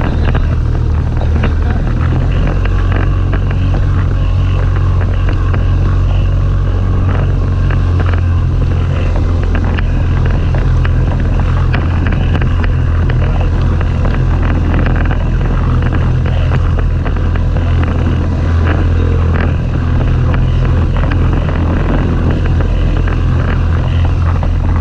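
Outboard motor running steadily as a small inflatable boat pushes through rough, choppy sea, with water splashing against the hull and wind on the microphone.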